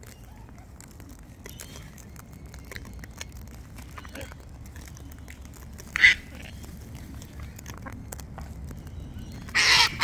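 Cockatoo squawking: one short harsh screech about six seconds in and a longer one near the end, with faint scattered clicks in between.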